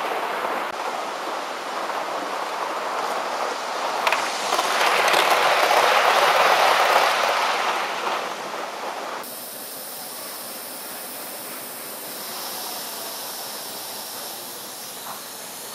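Large-scale model trains rolling along layout track, a steady rattling rumble that swells as a train passes close about five to eight seconds in. After a cut, a quieter steady hiss of steam from a live-steam model locomotive.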